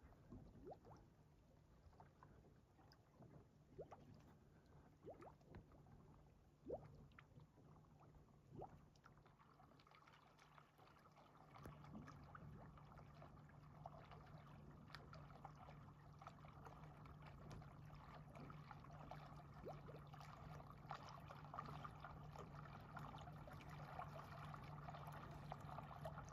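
Faint, steady hum of a boat motor as the boat comes in to the ramp, growing slowly louder from about halfway through, with a few small ticks in the first half.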